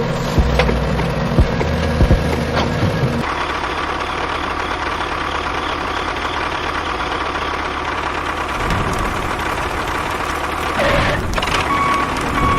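Engine running steadily, with a few sharp knocks in the first two seconds; about three seconds in the low hum drops away and the running sound turns steadier and noisier.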